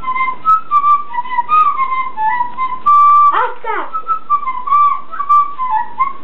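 Simple homemade theme-song melody played on a small flute: a string of short stepping notes, a loud held note about three seconds in, then a steep swooping slide down before the tune carries on.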